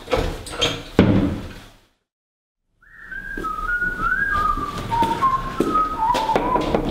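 A sudden thump about a second in that dies away into a second of silence, then a person whistling a slow tune whose notes step downward.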